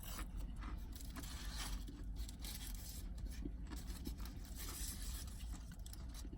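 Paper food wrapping rustling and scraping in irregular short bursts over a low steady hum.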